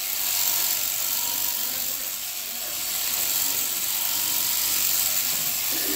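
Sheep-shearing handpiece on a hanging drive shaft running steadily as it clips through the fleece on a ewe's belly.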